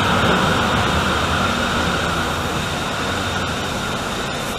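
Frankfurt U-Bahn train pulling into an underground station platform and braking to a stop, its running noise dying away gradually.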